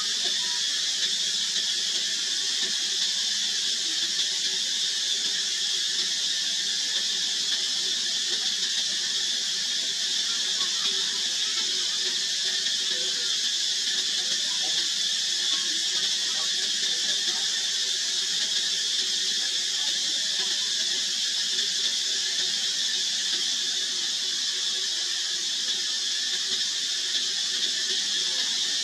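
Insect chorus, most likely cicadas, droning steadily and high-pitched without a break.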